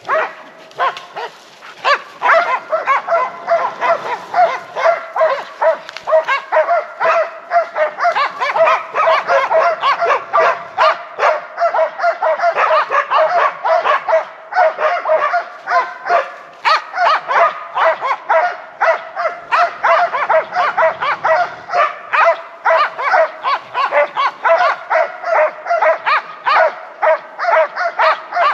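Hunting laikas barking hard and without a break, about two to three barks a second. This is the steady baying of dogs holding game in place.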